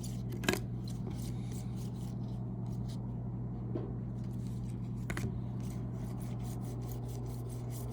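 Trading cards sliding and rubbing against each other as a stack is handled and flipped through, with a couple of sharper flicks, over a steady low hum.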